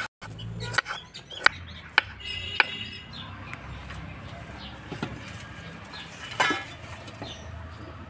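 A knife chopping a peeled potato on a wooden cutting board, four sharp strikes in the first three seconds. Then dry firewood sticks being handled and laid by a mud stove, with a brief clatter about six and a half seconds in.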